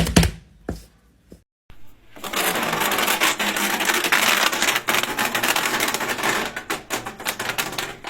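A fidget toy worked by hand: a short run of sharp clicks, then after a brief gap about six seconds of dense, rapid clicking and crackling.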